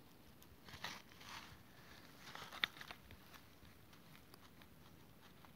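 Mostly quiet, with a few faint rustles and light clicks and one sharper click near the middle.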